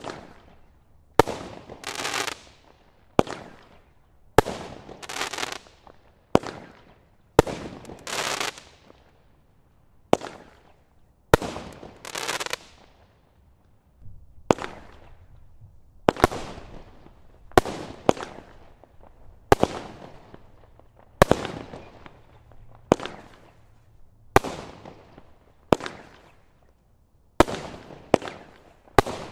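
Multi-shot aerial firework cake firing shot after shot, about one every one to two seconds. Each shot is a sharp bang, and several trail off into a hissing tail of a second or so.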